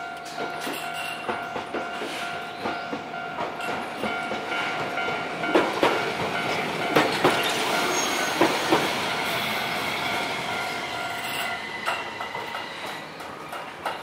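A Japanese level-crossing alarm rings in a steady repeating pattern while a green two-car Tokyu Setagaya Line tram rolls through the crossing, its wheels clacking over the rail joints several times about halfway through. The alarm stops a couple of seconds before the end.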